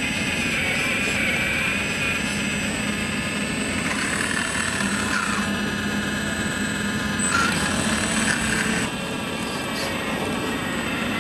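Hydraulic pump of a scale RC hydraulic excavator whining as the boom and bucket dig, its pitch bending up and down with the load. It is loudest shortly before it eases off about nine seconds in.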